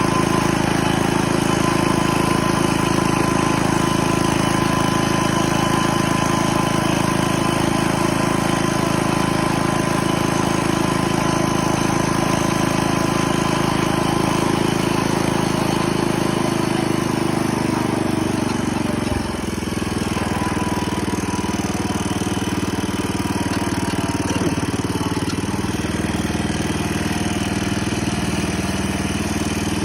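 Garden tractor's single engine running steadily; about two-thirds of the way through, its note drops and it carries on at a lower, less even speed.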